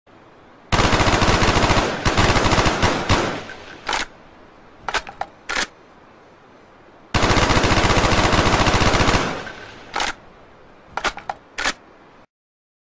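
Steyr AUG 5.56 mm bullpup rifle firing fully automatic: two long rapid bursts several seconds apart, each dying away and followed by a few short sharp cracks.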